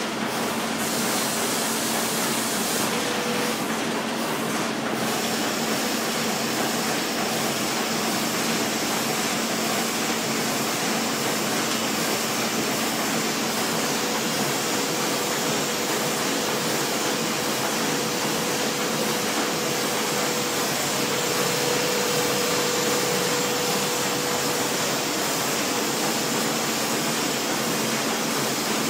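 Foliant laminating machine running steadily, a continuous whirring hum of its motor and rollers as sheets feed through. A second, higher steady tone joins about halfway through.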